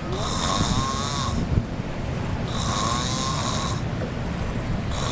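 A man snoring, one long snore about every two and a half seconds. A short sharp knock sounds about a second and a half in.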